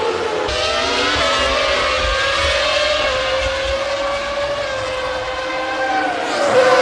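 Formula One race car engine running at high revs, its pitch holding fairly steady with small dips and rises. The sound changes abruptly about half a second in and swells louder near the end.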